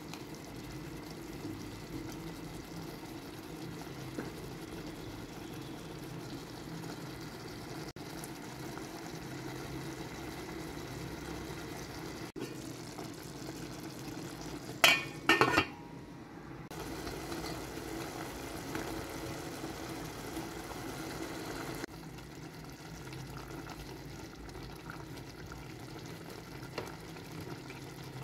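Pot of beef stew in tomato sauce simmering with a steady bubbling. A brief loud clatter comes about halfway through.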